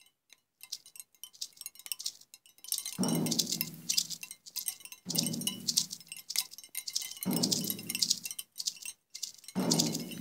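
Wind chimes tinkling in a dense, irregular shimmer of high clinks. A low note sounds four times, about every two seconds from about three seconds in, each one fading out over a second or so.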